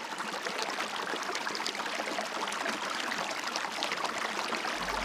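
A mountain trout river tumbling steadily over rocks, a continuous splashing flow. Low music notes come in just before the end.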